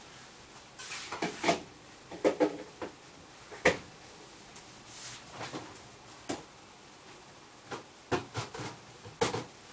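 Kitchen clatter: irregularly spaced knocks and clicks of utensils and containers being handled, some in quick clusters of two or three.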